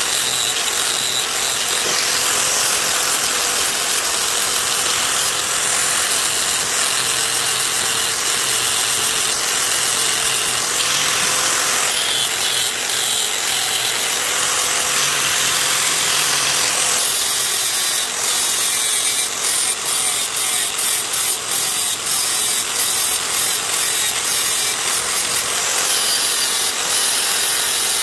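Angle grinder running and grinding down a weld bead on aluminum, a steady motor whine under a grinding hiss. In the second half the grinding comes in short, broken passes.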